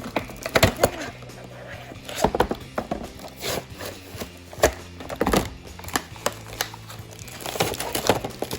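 Background music with a steady low drone, under scattered clicks and crinkles of plastic and cardboard toy packaging being pulled open.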